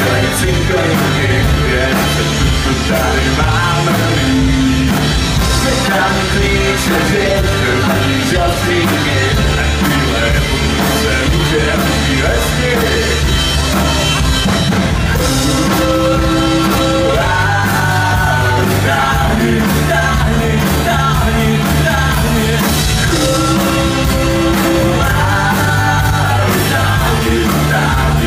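Live rock band playing a song: a male voice singing over electric guitars and drums.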